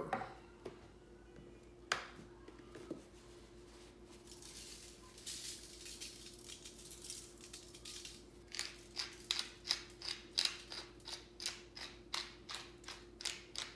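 Garlic salt shaken from a plastic shaker onto raw steak as a soft hiss, then a hand-twisted pepper mill grinding pepper in a quick run of clicks, about three a second, from about halfway through.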